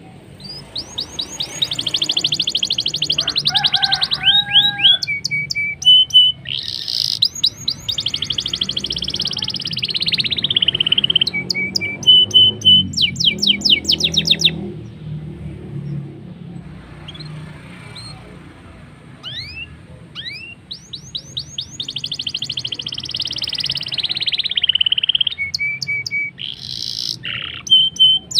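Blackthroat (black-throated canary) singing in long, fast rolling trills, broken by short repeated whistled notes and quick rising chirps. The song comes in a few long phrases separated by quieter gaps, the loudest trills about two, eight, and twenty-three seconds in.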